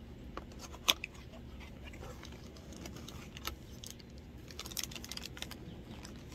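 A cardboard snack box and a plastic-wrapped dried banana being handled: scattered crinkles and clicks from the packaging as the piece is pulled out, with one sharp snap about a second in and a denser run of crinkling later on.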